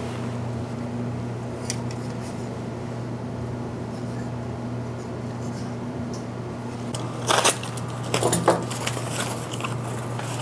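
Hands handling unboxed hardware and its packaging over a steady low hum: a few faint clicks, then two louder bursts of clatter and rustle about seven and eight seconds in.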